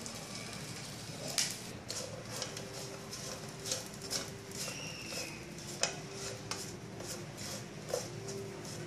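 Sliced sausage frying in oil in a nonstick pan, with irregular crackles and pops, and a wooden spatula tapping and scraping against the pan as the pieces are stirred.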